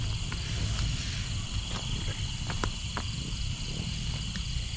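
Night-time chorus of crickets and other insects, a steady high trilling, with a few scattered sharp clicks and a low background rumble.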